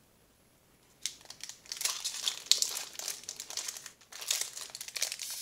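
Crinkly packaging being handled, such as a foil booster pack wrapper, with rustling and small clicks. It starts about a second in, after a moment of near silence, and dips briefly near the end.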